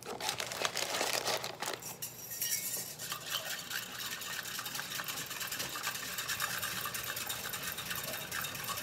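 A metal utensil stirring gelatin powder into hot water in a glass mixing bowl, to dissolve it. It makes a steady, rapid clinking and scraping against the glass.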